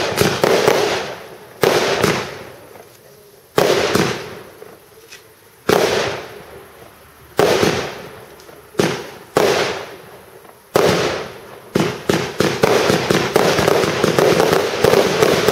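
Aerial fireworks bursting in the sky: single loud bangs every second or two, each trailing off over about a second. About twelve seconds in they give way to a rapid, continuous barrage of bursts.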